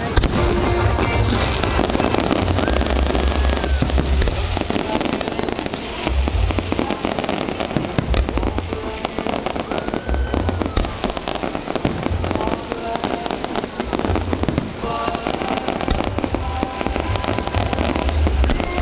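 Aerial fireworks display: deep booms of shells bursting every few seconds, with dense crackling and popping between them.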